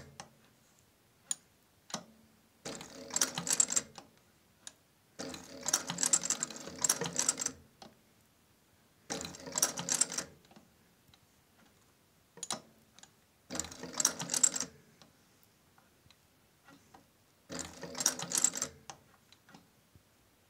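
Singer 34K11 roller-foot cylinder-arm leather sewing machine stitching leather in short runs of one to two and a half seconds, about seven runs with pauses between them and a few single clicks in the gaps. It is sewing a curve in stops and starts, halting to lift the foot and pivot the work at each change of direction so the stitch length stays even.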